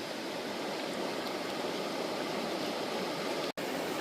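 Steady rushing of a flowing creek, an even wash of noise with a split-second break near the end.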